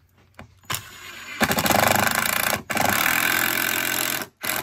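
A cordless drill driving a screw through a door jamb: a short trigger pull, then two runs of over a second each with a brief break between, and a last short burst near the end.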